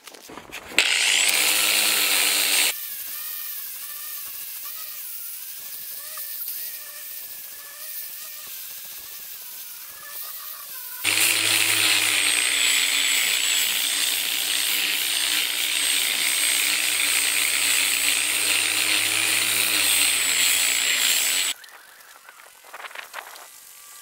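Electric angle grinder with a diamond polishing pad wet-sanding the edge of a cast concrete countertop. It runs loud briefly, then quieter for several seconds with a wavering pitch, then about ten seconds of loud, steady grinding with a high whine, and cuts off sharply near the end.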